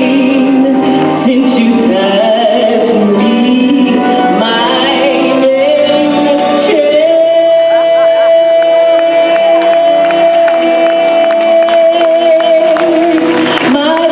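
Gospel choir singing with a female soloist out front; the soloist's line turns into one long held note from about halfway through until just before the end, when a new phrase begins.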